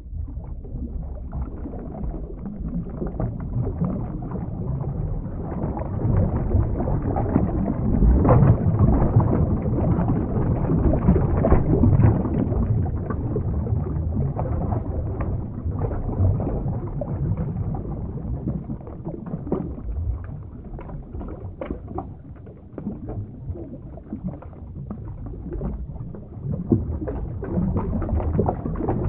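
Underwater ambience sound effect: a muffled, low rushing of water with scattered small clicks, swelling and easing.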